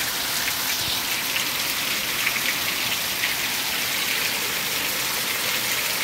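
Heavy rain pouring down steadily onto a paved street and buildings: a dense, even hiss of countless drops.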